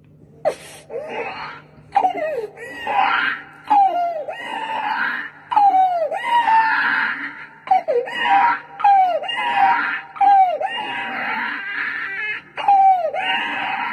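A man imitating a newborn baby crying: a run of about ten short wails, each falling in pitch.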